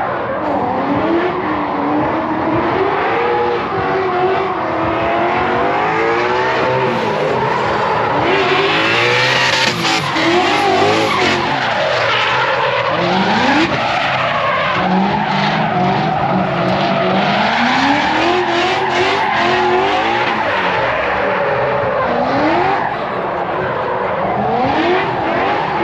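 Cars drifting: engines revving up and falling back again and again over the continuous screech of sliding tyres.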